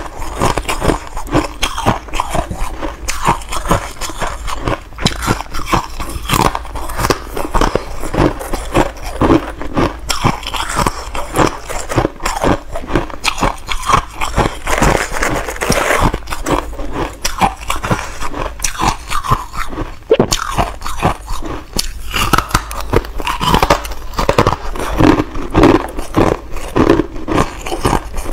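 Chunks of freezer frost being bitten and chewed close to a lapel microphone: a continuous run of sharp, irregular crunches, several a second.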